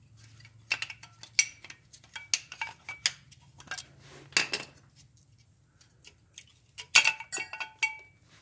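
Steel rear brake caliper bracket from a 2010 Toyota 4Runner clinking and knocking as it is handled, with its metal pad clips rattling. The clinks come in several short groups, and there is a brief metallic ring near the end.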